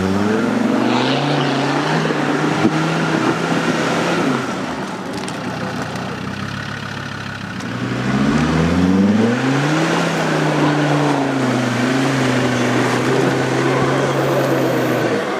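Land Rover Discovery 2's Td5 five-cylinder turbodiesel being driven hard off-road. The revs rise at the start and hold, drop off after about four seconds, then climb again about eight seconds in and hold high.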